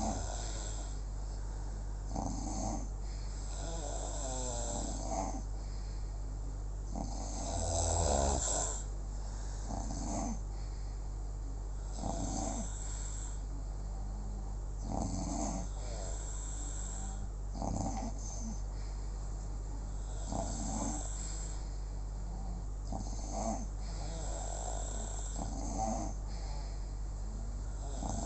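Slow, regular snoring, one snore about every two and a half seconds, with a louder, longer snore about eight seconds in, over a steady low hum.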